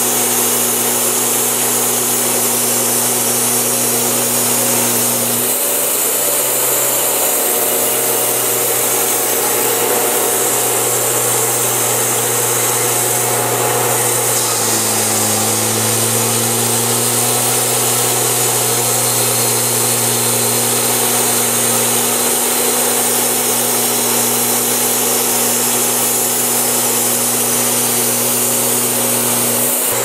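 Wood-Mizer portable band sawmill cutting a log: the mill's engine runs steadily under load beneath the loud hiss of the band blade in the wood. The engine note shifts slightly about five seconds in and again about fifteen seconds in.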